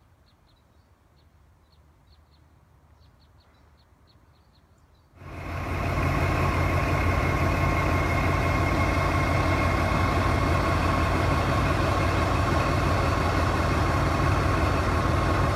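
Faint high ticks over near-quiet. About five seconds in, the diesel engine of a 1950s-era former switcher locomotive comes in abruptly, idling loudly and steadily with a constant hum.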